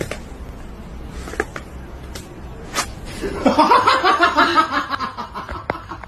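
A person laughing hard in quick pulses, starting about three seconds in. Before that there are only scattered sharp clicks over a low rumble.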